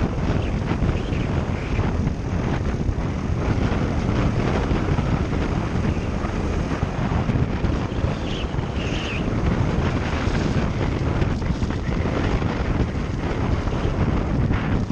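Motorcycle running at road speed, its engine mixed with steady wind rumble buffeting the microphone.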